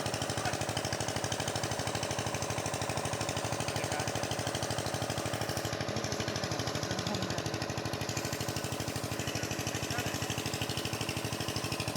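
An engine running steadily with a rapid, even chugging pulse.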